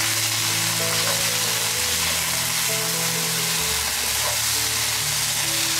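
Sausages and vegetables sizzling steadily in a hot non-stick pan over medium-low heat as they are stir-fried and tossed with wooden chopsticks. Soft background music with held notes plays underneath.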